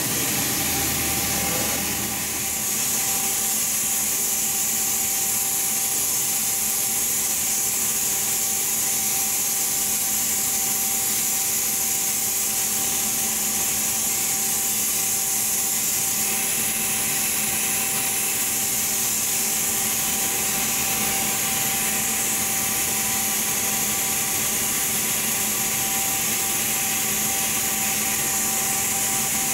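Air equipment of a media-blasting booth running: a steady, loud hiss with a constant hum underneath, settling in about two seconds in.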